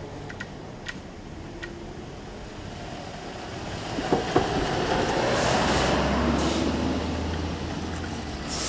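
Electric commuter train running through a level crossing: a rushing noise of wheels and running gear that builds from about halfway in, with a low steady hum and a couple of sharp clacks.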